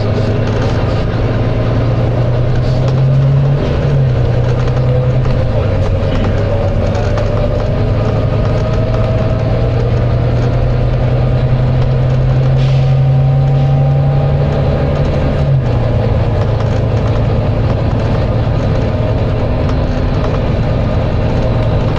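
Volvo B9TL bus's diesel engine and driveline running under way: the engine note drops at several gear changes, a whine rises slowly as the bus picks up speed, and a short hiss of air comes about two-thirds of the way through.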